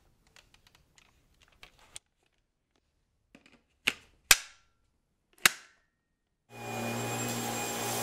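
Light plastic clicks and taps from the Dyson V11 High Torque cleaner head being handled, then three sharp plastic clicks as the wand is latched onto the head. Near the end the cordless vacuum's motor starts and runs steadily with a high whine, without pulsing: the sign that airflow is clear of blockages.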